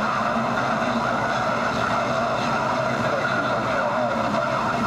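CB radio receiver hissing with steady static, faint garbled voices wavering underneath the noise.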